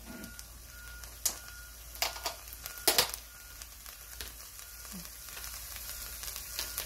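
Sweet corn kernels frying in a little oil in a nonstick pan: a soft sizzle with a few sharp pops, the loudest about three seconds in, the sizzle growing a little louder near the end.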